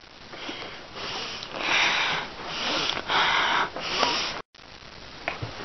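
A person sniffing loudly, about five breathy sniffs in a row, with a brief dropout in the sound near the end.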